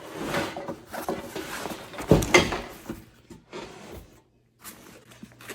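Rustling and handling of a backpack as its pockets are opened and rummaged through, with a single sharp knock about two seconds in.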